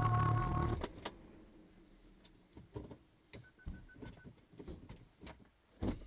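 Music stops about a second in, leaving a quiet car interior just after a crash, with scattered small knocks and rattles. A short run of four faint beeps comes about halfway through, and a louder knock comes near the end.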